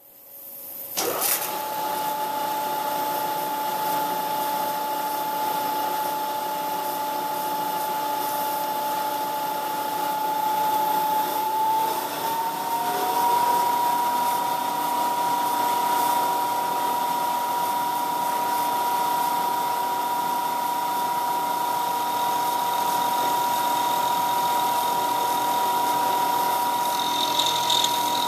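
CNC milling machine running steadily as a small end mill cuts the helical teeth of a four-start worm gear, with a steady spindle whine and a hiss of coolant spray. The machine starts about a second in, its whine steps up slightly in pitch about halfway, and a higher tone joins near the end.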